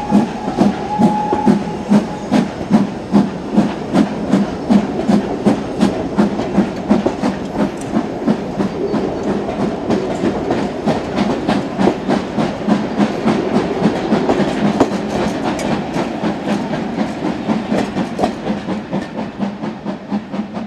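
Steam locomotive hauling a train of carriages away, its exhaust beating in a steady chuffing rhythm over the rumble of the coaches on the track. The beats grow fainter near the end as the train draws off.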